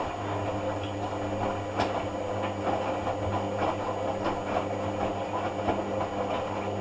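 Hoover AC166 Classica 1200 washing machine running in a cotton rinse. A steady motor hum runs under irregular sloshing and clicking from the water and laundry in the drum.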